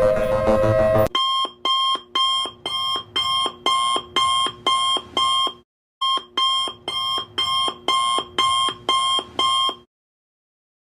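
Simulated emergency-alert alarm beeping: short electronic beeps, a bit over two a second, in two runs of about four seconds with a short break between, then cutting off. It opens with the end of a rising siren-like tone.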